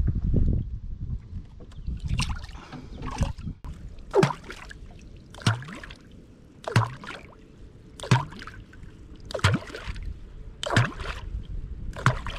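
A catfish clonk is struck down into the river surface again and again, a little under once a second, about nine times. Each stroke makes a hollow plop that drops in pitch, the sound used to call wels catfish. The first second holds a water splash as a fish is let go at the boat's side.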